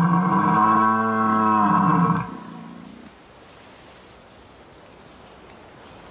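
Red deer stag roaring in the rut: one long, deep, drawn-out bellow that ends about two seconds in, followed by quiet natural background.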